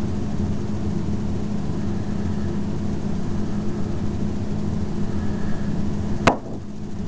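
Steady low background hum in a small room, with one sharp click about six seconds in, after which the hum briefly drops.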